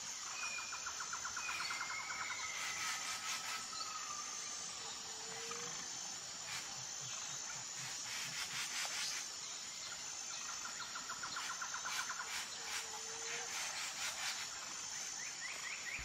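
Faint outdoor insect and bird ambience: a steady high chirring of insects, with bird calls (whistled notes and rapid trills) coming and going and a few faint clicks.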